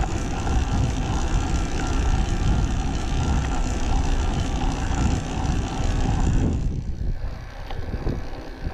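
Electric mountain bike climbing a steep paved road in turbo assist, its tyres and motor running under a heavy rumble on the camera microphone. The upper hiss drops away about six and a half seconds in.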